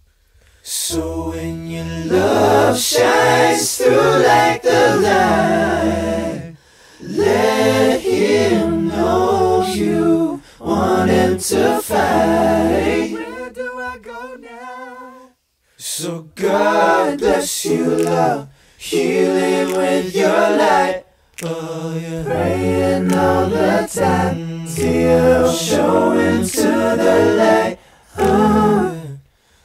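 Slow, layered male vocal harmonies in a gospel-like, nearly a cappella style, sounding like a small choir. They are sung in phrases broken by short pauses, with a quieter single line between the fuller passages.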